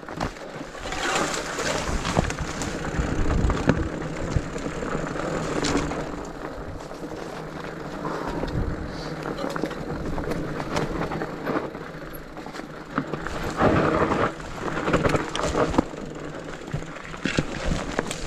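Rigid fat bike rolling downhill over a rough dirt-and-rock trail: fat tyres crunching over the ground while the unsuspended frame and parts rattle and knock at every bump. It gets louder about a second in and again about two thirds of the way through.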